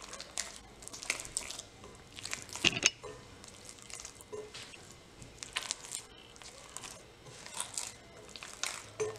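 Wet sourdough dough squelching under bare wet hands as it is squeezed and pinched in a glass bowl to work in added salt and water. The squelches come irregularly, the loudest nearly three seconds in.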